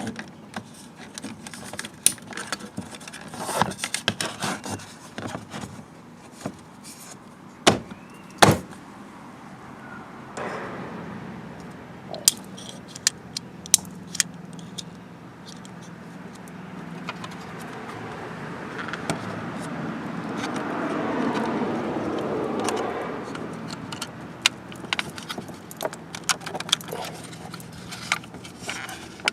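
Plastic clicks, knocks and rattles of a Gen 2 Toyota Prius door armrest being handled, its wiring connectors plugged in and the armrest snapped back into the door panel. There are two sharp snaps about eight seconds in, and a longer stretch of rubbing and scraping in the middle.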